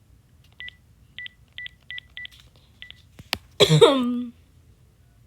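Phone keypad beeping as a number is tapped in: six short beeps, irregularly spaced, over the first three seconds. About three and a half seconds in, after a click, comes the loudest thing: a loud noise lasting under a second with a falling pitch.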